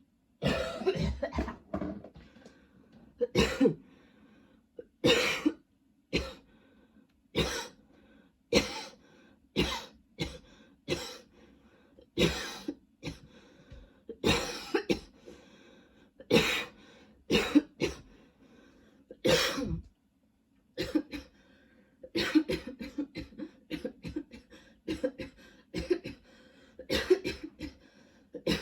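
A woman coughing in long spells, which she puts down to a lingering tickle in her throat. A quick run of coughs comes at the start, then single coughs every second or two, a brief pause about twenty seconds in, and another fast fit of coughing.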